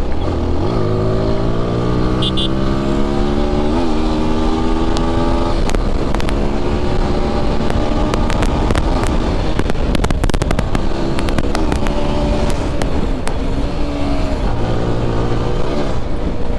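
Motorcycle engine at highway speed, heard from the rider's seat with wind rush on the microphone. Its pitch rises steadily over the first five seconds or so as the bike accelerates, then drops and climbs again in shorter pulls. A run of sharp clicks sits around the middle.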